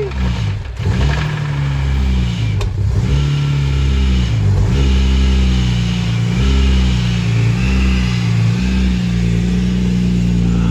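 BMW S54 straight-six of a 2002 M3 running just after start-up on a fresh fill of 10W-60 oil, its speed dipping and rising several times with light revs before settling.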